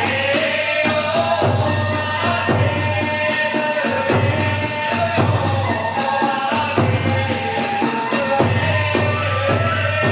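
Kagura hayashi accompaniment: drums and clashing hand cymbals strike a steady beat, about two strikes a second, under a melody line that slides between notes.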